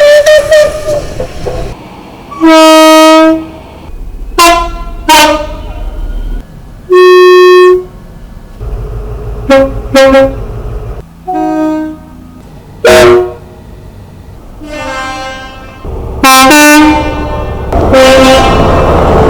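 A run of British diesel train horn blasts, about a dozen in all. Some come as quick two-note pairs and some as longer single notes, with the rumble of the trains between them. The loudest blasts hit the top of the level and distort.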